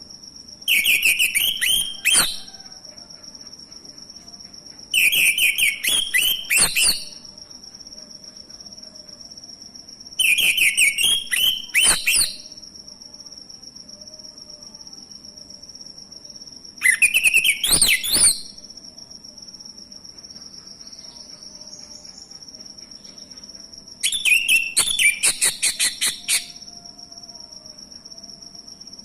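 Male orange-headed thrush singing in five separate phrases of rapid, varied whistles and twitters, each about two seconds long with several seconds of pause between. A steady high-pitched tone runs underneath.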